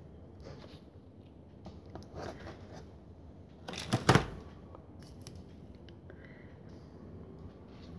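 Rustling and clinking as craft materials are handled, with a sharp knock and low thump about four seconds in.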